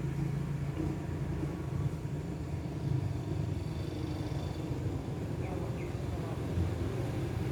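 Strong wind buffeting the microphone as a steady, fluctuating low rumble, with a couple of faint short chirps about five and a half seconds in.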